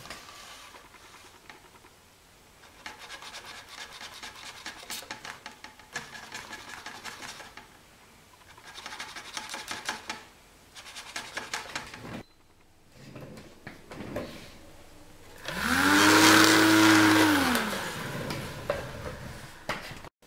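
Small 12 V car fan motor on a homemade maglev train, fed through sliding contacts, running in stretches with a scratchy, crackling rub. Near the end the fan spins up loudly, holds, then winds back down.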